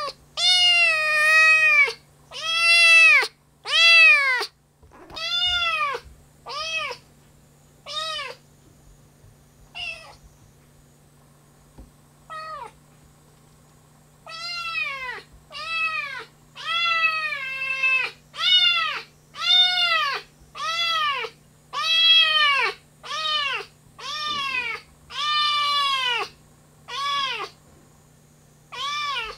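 Kitten meowing over and over: more than twenty short, high calls, each rising and then falling in pitch, coming in quick runs with a few seconds' lull in the middle.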